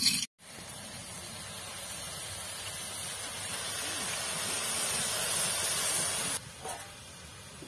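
Chopped saag greens sizzling in hot oil in an iron wok: a steady hiss that grows slowly louder and cuts off suddenly near the end.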